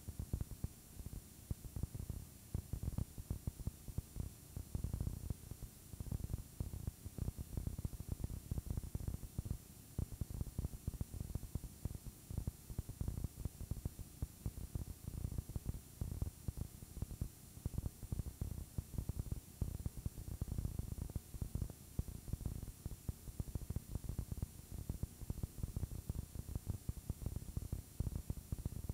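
Static: a dense, irregular low crackle over a steady hiss.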